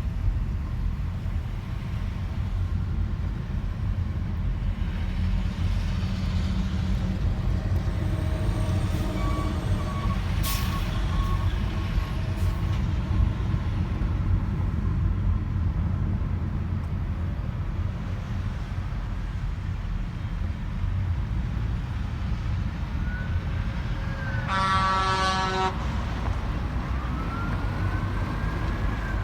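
Steady low rumble of road traffic. Near the end a horn sounds once for about a second and a half, with faint siren wails rising and falling around it.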